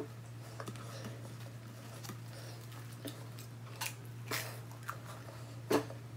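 Someone biting and chewing toasted bread close to the microphone: a series of sharp crunches at irregular intervals, the loudest near the end, over a steady low hum.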